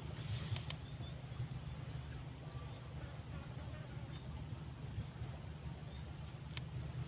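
Strong wind buffeting the microphone, a gusty low rumble, with a few faint sharp clicks.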